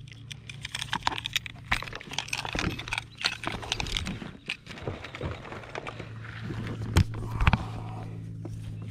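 Handling noise from weighing a largemouth bass on lip grips and a hanging scale in a plastic kayak: scattered clicks, knocks and rustles, with two sharper knocks about seven seconds in. A steady low hum runs underneath.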